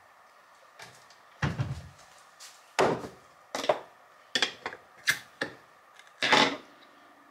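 A glass jar being handled and set down on a kitchen countertop: about seven sharp, irregularly spaced knocks and clunks.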